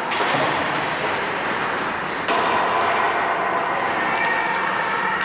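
Ice hockey play in a rink: a steady wash of skate and arena noise with a few sharp knocks of sticks and puck.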